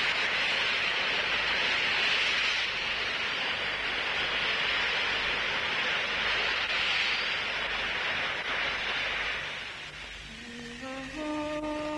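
Steady rushing of sea surf washing onto a shore, fading away after about nine seconds. Near the end a single held musical note comes in, climbing in small steps and then holding steady: the start of zar ceremony music.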